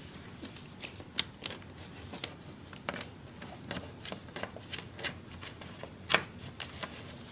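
Small plastic toy figures being handled and moved about, giving a string of light irregular clicks and rustles, with one sharper knock about six seconds in.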